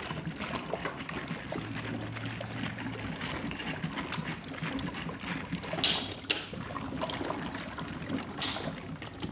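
Gas from a running HHO electrolysis generator bubbling steadily through water, a continuous irregular gurgling and trickling, with two short, louder noises about six and eight and a half seconds in.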